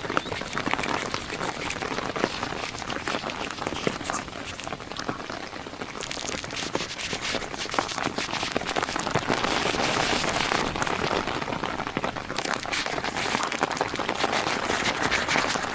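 Heavy monsoon rain pattering densely on a car, a thick continuous mass of raindrop ticks that grows a little heavier about halfway through.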